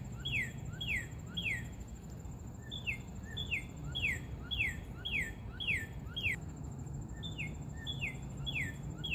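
A songbird calling in runs of three to six clear whistled notes, each sliding down in pitch, about two notes a second with short pauses between runs.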